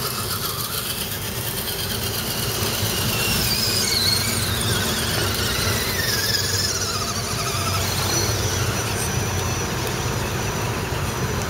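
Electric motors and gear drivetrains of 1:10 scale RC crawler trucks whining as they climb, the pitch wavering up and down with the throttle, over a steady low rumble.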